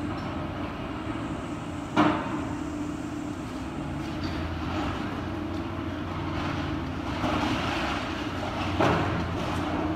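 Excavator on a demolition site: its diesel engine runs steadily while it breaks up and moves rubble, with two sharp crashes of debris, about two seconds in and near the end.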